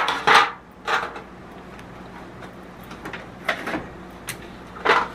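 A disposable aluminium foil pan and a plastic-wrapped package of ribs being handled: short crinkling and rustling bursts, the loudest as the pan is set down at the start, then a few smaller ones as the bag is lowered into the pan.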